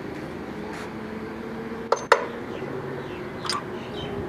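Two sharp metallic clinks close together, about two seconds in, from small steel engine parts knocking together in the hands, over a steady hum.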